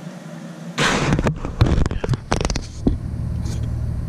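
Close-up handling noise from a bicycle helmet and its plastic straps and buckle. A sudden loud rustle comes about a second in, then a run of irregular clicks and knocks, over a low steady rumble.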